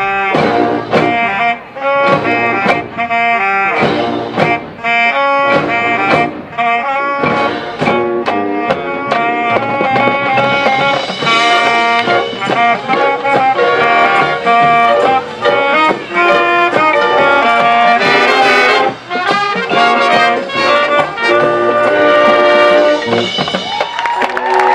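A marching band playing, led by brass, in fast, short, punched chords. Near the end the band settles into a long held chord.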